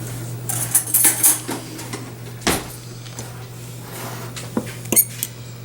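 A fork clinking and scraping against a mug while whisking egg and milk, in uneven clicks: a quick run about a second in, then single louder knocks.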